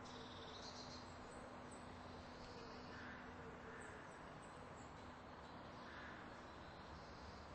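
Near silence: faint background hiss with a low steady hum.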